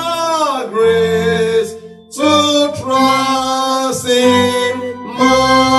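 Music with a male voice singing long held notes, with a short break between phrases about two seconds in and again near the end.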